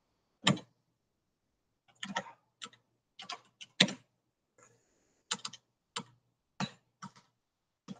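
Computer keyboard typing: separate key clicks in short, irregular runs as shell commands are typed.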